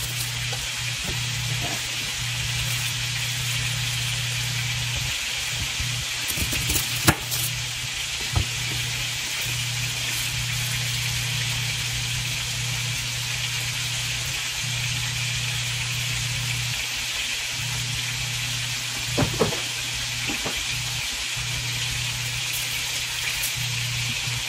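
Beef short ribs searing in a hot pan, a steady sizzle with a low steady hum beneath it. A few sharp knocks on a wooden cutting board cut through, the loudest about 7 seconds in and a pair about 19 seconds in.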